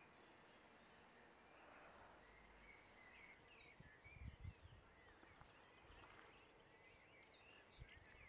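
Faint countryside ambience: a steady insect trill for the first three seconds or so, then scattered bird chirps, with a few low thumps about four seconds in.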